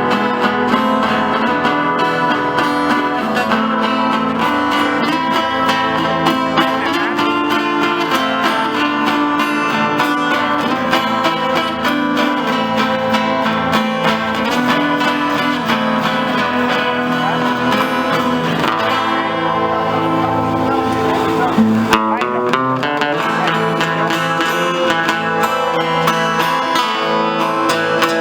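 Acoustic guitar music, plucked and strummed in a steady rhythm.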